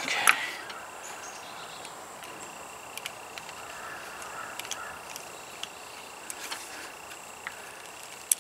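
A short rustle at the start, then a few light metallic clicks, about a second apart, as a ratcheting wrench works a nut on a car battery terminal. Under them runs a steady faint hiss with a thin high tone.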